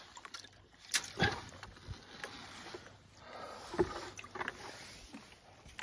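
Handling sounds of a plastic bait bucket on a wooden dock: a few sharp knocks and clunks as it is grabbed and moved.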